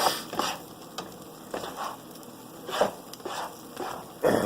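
Spatula scraping and stirring scrambled eggs in a frying pan in short, irregular strokes, over the sizzle of the eggs frying in olive oil.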